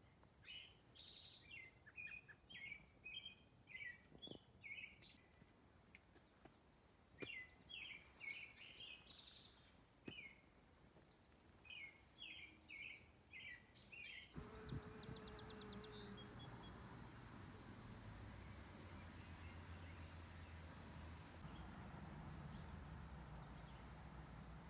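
Faint bird chirping: a string of short, repeated chirps. About halfway through, the chirps stop and give way to a faint steady outdoor noise with a low hum.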